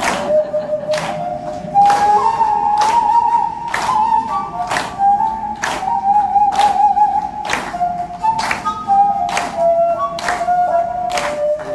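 Korean transverse bamboo flute playing a melody, with hands clapping in time, about one clap a second.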